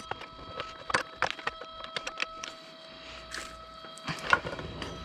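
Irregular clicks and knocks of metal parts and hand tools being handled, about a dozen scattered strikes with the sharpest a little past four seconds in, over a faint steady tone.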